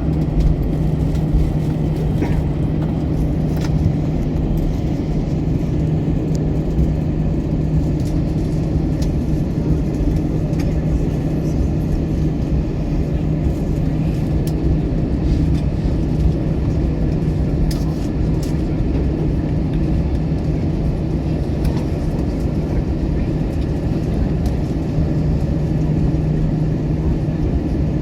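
Steady rumble of an Airbus A321's jet engines and rushing air heard inside the passenger cabin, with a constant low hum and a few faint clicks.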